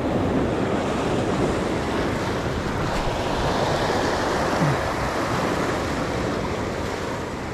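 Sea surf washing over shoreline rocks, a steady rushing wash.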